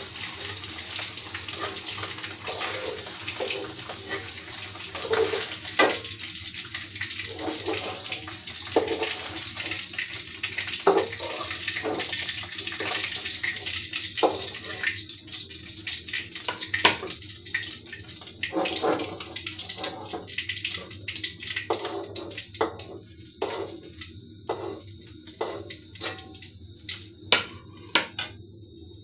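Baim (spiny eel) fish frying in hot oil: a dense sizzle that thins over the second half into scattered crackles, with sharp pops and clicks throughout.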